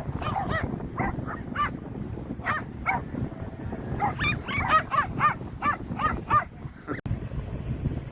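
A dog giving short, high-pitched yipping barks, a quick run of them in the middle, over steady wind rumble on the microphone.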